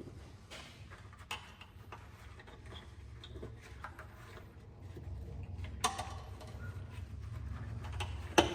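Scattered clicks and knocks of engine parts and tools being handled during a bottom-end teardown, over a steady low rumble. Two sharper knocks come about six seconds in and near the end.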